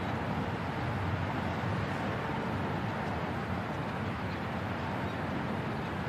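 Urban park ambience: a steady wash of distant city traffic with no distinct events standing out.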